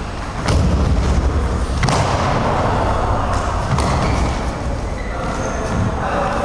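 Stick sparring: a few sharp clacks of sticks striking, over thuds and scuffs of footwork on a wooden floor.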